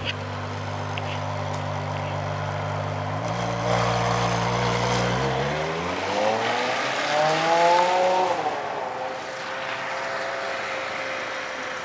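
Ferrari 599 GTO's V12 engine idling steadily, then rising in pitch as the car pulls away, dropping sharply at an upshift about eight seconds in, and settling to a steady, quieter note as it drives off.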